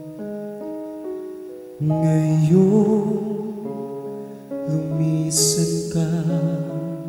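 Slow ballad played live by a small band on keyboard, electric guitar and bass guitar, with a male voice singing long held notes with vibrato.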